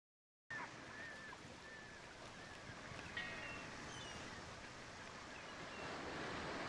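Faint, steady water-and-wind ambience of the bay that fades in about half a second in, with a few short, high bird calls scattered through it.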